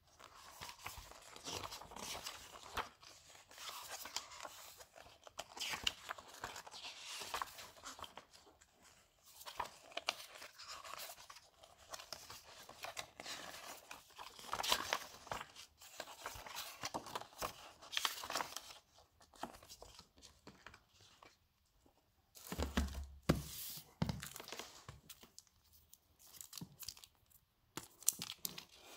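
Paper rustling and flapping as the thick glossy pages of a photobook are turned and handled. Two-thirds of the way through there is a louder burst of handling with dull knocks, and near the end a crinkle as a photo item in plastic packaging is picked up.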